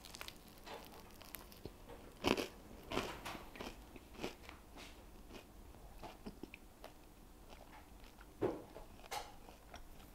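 A person biting into and chewing a sandwich on toasted Pugliese bread, with crunchy bites that come irregularly. The louder crunches fall about two and three seconds in and again near the end.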